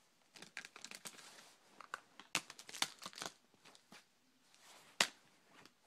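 Plastic-sleeved trading cards and rigid plastic card holders being handled: irregular crinkling and clicking, busiest in the middle, with one sharp click about five seconds in.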